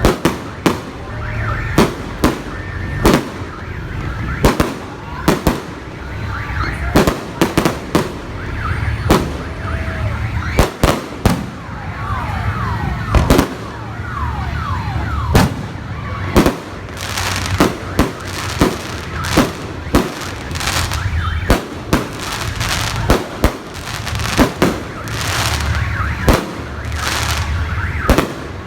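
Aerial fireworks display: a rapid, irregular series of sharp bangs from bursting shells, mixed with whistles that glide in pitch, most thickly about halfway through.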